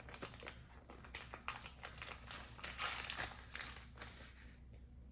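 Snack packaging being handled, crinkling and rustling in a run of small irregular crackles, busiest from about a second in until near the end.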